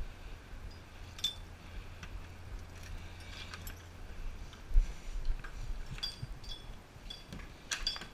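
Light metallic clicks and clinks of doors being handled, doorknobs turning and latches working, with a soft thump about five seconds in.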